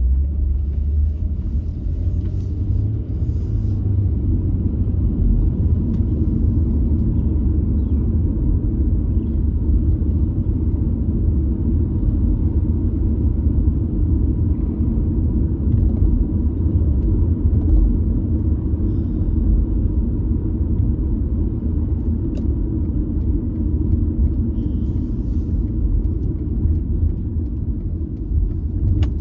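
Steady low rumble of a car driving at low speed, heard from inside the cabin: engine and tyre noise.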